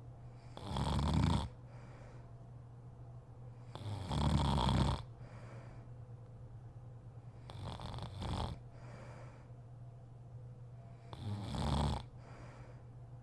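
A sleeping woman snoring: four snores spaced about three and a half seconds apart, the third one weaker than the others.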